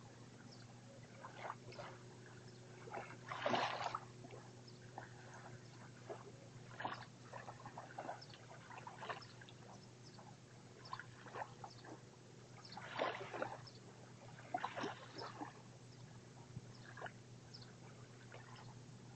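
Small waves lapping at a sandy, shell-strewn shore: soft, irregular splashes and trickles, a few of them louder, over a steady low hum.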